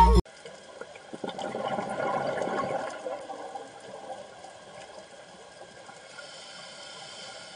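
Background music cuts off right at the start, leaving water noise as heard underwater. It swells for a couple of seconds, then settles into a faint, steady hiss.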